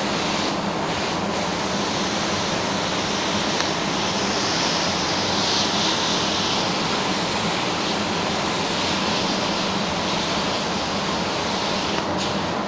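Steady rushing noise of a paint spray booth's air handling, with the hiss of a compressed-air paint spray gun swelling for a few seconds in the middle.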